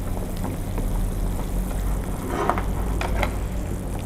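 Clear beef broth simmering in a pot as a ladle stirs the meat in, with a few light knocks and scrapes of the ladle in the second half.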